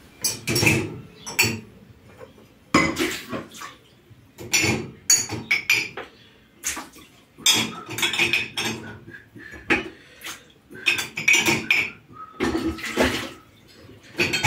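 Dishes and kitchenware clinking and clattering as they are picked up and set down by hand, in irregular bursts.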